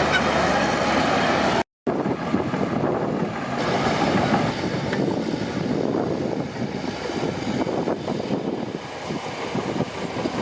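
Crawler bulldozer working, its diesel engine running under a dense clattering rattle of steel tracks. The sound drops out for a moment just before two seconds in, then carries on.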